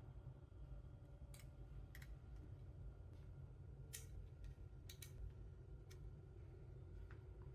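Faint, scattered clicks and light taps of metal support posts and acrylic pieces being handled and screwed together, about seven in all, over a low steady background rumble.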